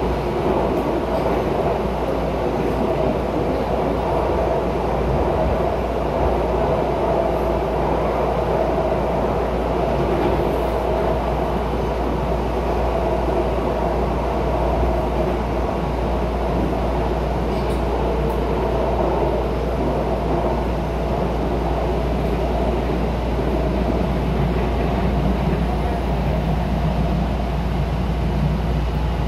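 Steady running noise inside a moving Miami Metrorail Hitachi railcar on the elevated track.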